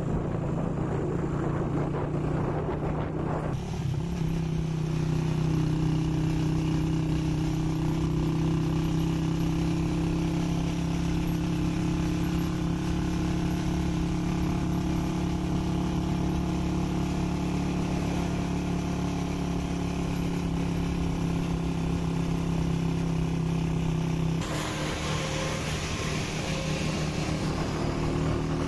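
Engine of a moving vehicle running at a steady speed, heard from inside it, with road and wind noise. About four seconds in the engine tone settles and holds a constant pitch, and near the end a louder hiss of wind and tyre noise comes in.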